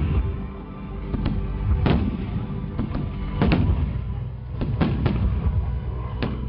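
Fireworks display: aerial shells bursting overhead, about ten sharp bangs in quick, uneven succession over a low rumble.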